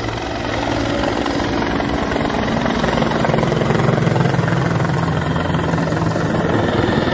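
Helicopter flying low overhead, its rotor and engine running steadily, growing louder toward the middle as it passes close, with a faint steady high whine.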